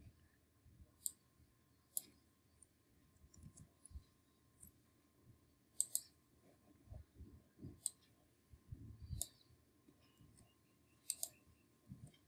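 Faint, irregular clicks of a computer mouse and keyboard, one every second or so.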